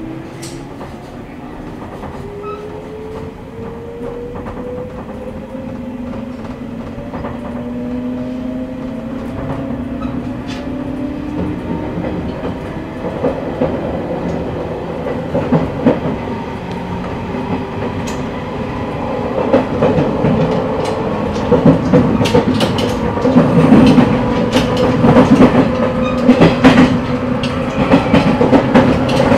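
JR 185 series electric train heard from the deck of a motor car: the traction motor whine rises steadily in pitch as the train picks up speed. The running noise grows louder, and from about halfway on the clack of rail joints comes through repeatedly.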